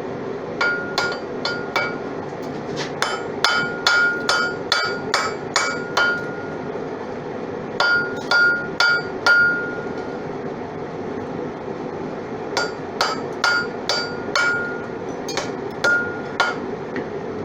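Hammer striking hot steel on an anvil in runs of light, quick blows that make the two pieces a forge weld, the anvil ringing briefly after many of the hits. A steady rushing of the running forge sits underneath.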